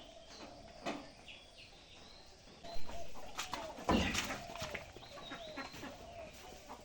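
Domestic hens clucking in a farmyard, with small birds chirping. A few sharp knocks stand out about three and four seconds in.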